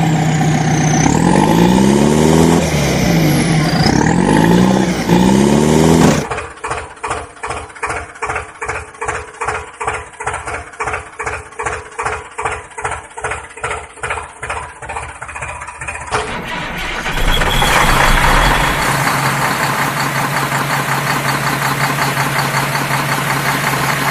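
Vehicle engine sounds laid over toy play, in three parts: first a run of rising and falling pitch sweeps like revving, then about six seconds in a regular chugging of about three beats a second for some ten seconds, then a steady engine running.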